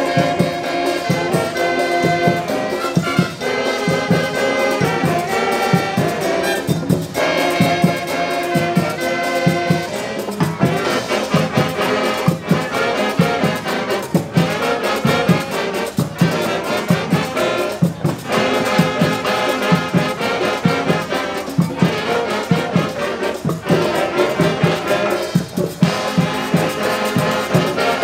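Brass-band music, trumpets and trombones playing held melodic notes over a steady drum beat.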